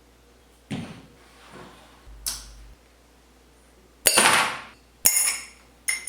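Hard objects, glass among them, being set down and knocked together: a series of about five sharp clinks and knocks, the loudest about four seconds in, the last few ringing brightly.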